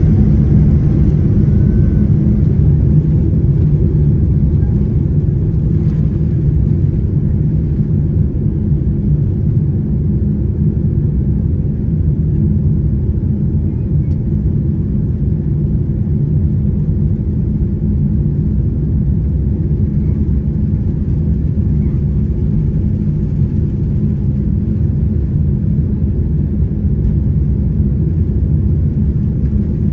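Boeing 787 airliner at takeoff thrust, heard from inside the passenger cabin: a steady, loud low rumble of the jet engines and airflow during the takeoff run and initial climb. It eases off slightly toward the end.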